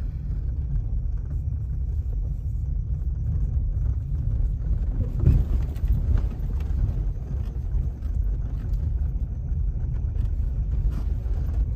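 Car engine and tyres rumbling steadily, heard from inside the cabin while driving over an unpaved track, with a single thump about five seconds in.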